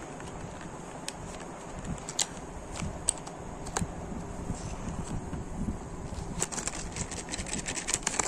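Handling noise and scattered light clicks and taps from a small cardboard box of colour pencils being handled and opened. The clicks come thick and fast in the last couple of seconds.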